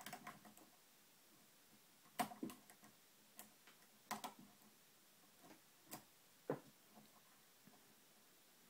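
Faint, irregular clicks and ticks of a lock pick and tension wrench working the spring-loaded pins inside a TrioVing oval pin-tumbler cylinder, a handful of separate clicks a second or so apart.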